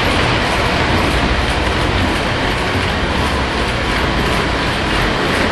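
Lionel O gauge model trains running on their track loops, a steady, loud, unbroken running noise of wheels and motors.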